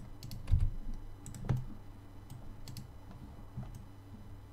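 Scattered clicks from a computer mouse and keyboard as vertices are moved in 3D modelling software, with a couple of louder dull thumps about half a second and a second and a half in.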